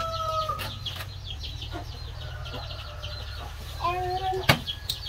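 A rooster's crow holding one steady pitch and trailing off about half a second in, over many short high chirps from small birds or chicks. A shorter pitched call comes about four seconds in, followed by a sharp click. A steady low hum runs underneath.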